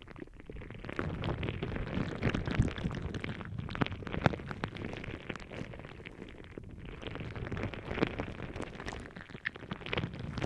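Gel balls squished and rubbed against a binaural microphone's ear: dense crackling and squelching over a low rumble, with many small pops.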